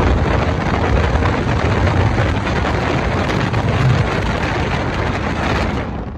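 Wind rushing past an open window of a pickup truck moving at highway speed, buffeting the microphone with a low rumble, with tyre and road noise underneath.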